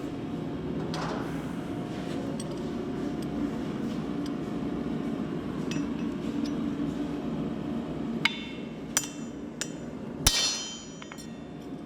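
Four ringing steel-on-steel hammer strikes about two-thirds of the way in, an axe used as a hammer on hot steel and anvil, the last strike the loudest and longest-ringing. Before them a steady low drone runs under the scene.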